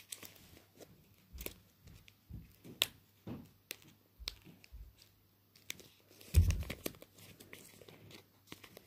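Fingers picking and tearing at the sticker seal of a small cardboard blind box, which won't come open. Scattered clicks, crinkles and short tearing sounds, with a louder thump and rustle about six and a half seconds in.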